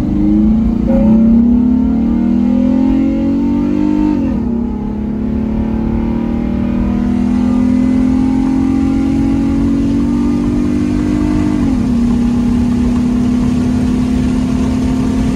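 A V6 car engine heard from inside the cabin, accelerating. Its note rises and then drops as it shifts up, about four seconds in and again near twelve seconds, then holds steady. The engine is running on only four of its six cylinders because of failed coil packs.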